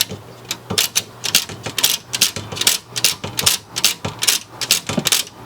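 Small metal parts of a record player's turntable mechanism clicking and clacking as they are fitted back together by hand: a rapid, irregular run of sharp clicks.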